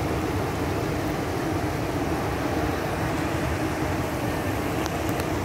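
Floodwater rushing over a submerged concrete road, a steady deep rush of water that does not let up.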